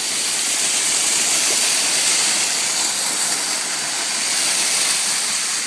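Waterfall water pouring and splashing onto a four-wheel-drive vehicle as it drives through the falls: a loud, steady rushing hiss.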